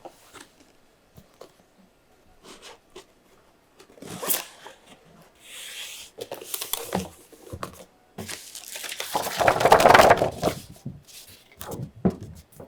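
Award shipping package being torn open and handled by hand: scattered small clicks and rustles of packaging, then a long, loud tearing about eight to eleven seconds in.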